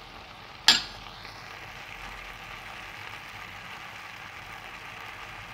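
Chopped tomato, onion, corn and huitlacoche sizzling in an enamel pot over a low flame while being stirred with a plastic spoon. There is one sharp knock a little under a second in, and the sizzle grows a little stronger after it.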